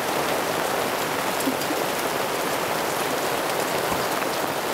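Steady rain: an even, dense hiss with scattered single drop ticks.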